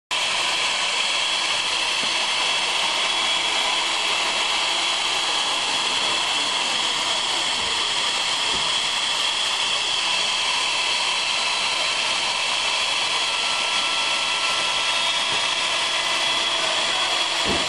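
CNC wood lathe with router spindles cutting spiral twists into a turning wooden baluster: a steady, unbroken machine noise with a high whine from the spindle motors.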